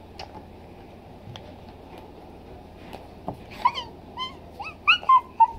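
A dog whining in short, high-pitched whimpers that begin a little past halfway and come faster and louder toward the end.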